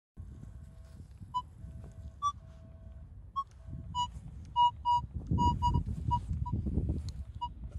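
Metal detector, a Minelab CTX3030, giving target tones as it is swept over the ground, signalling buried metal. A few drawn-out low tones come first, then from about halfway a run of short, higher beeps, over a low rumbling noise.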